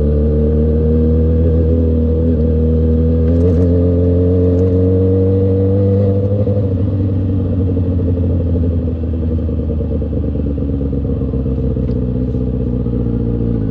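Kawasaki Ninja ZX-6R inline-four engine running at a steady highway cruise, its pitch creeping up slightly and then easing off a little about halfway through.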